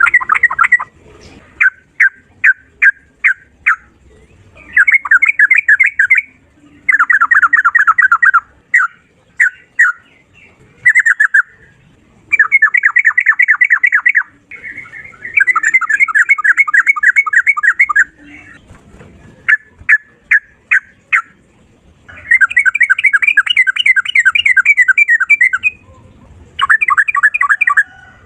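Male sooty-headed bulbul (trucukan) singing loudly in fast rattling trills (ropel), each a long phrase of rapidly repeated notes lasting two to three seconds. Between the trills come runs of single, separate notes and short pauses.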